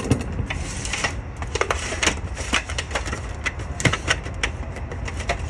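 Irregular clicks, knocks and scrapes of a cooking utensil against a metal wok and an aluminium foil tray as thick, sticky peanut-brittle mixture is poured out and pushed flat. The loudest knock comes right at the start.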